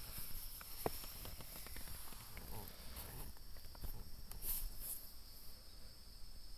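Outdoor ambience of insects keeping up a steady high-pitched trill, with scattered light ticks and rustles.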